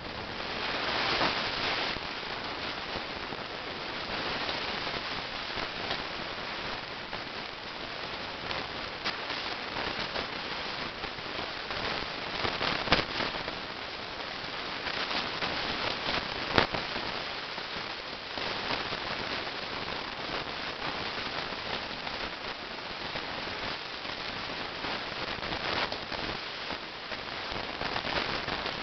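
Steady rushing noise with scattered sharp slaps of boxing gloves hitting focus mitts, two of them standing out loudly about halfway through.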